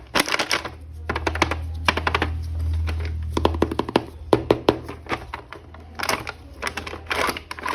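Plastic action-figure toy and its packaging being handled: a fast, irregular run of clicks and taps, with a low hum under the first half.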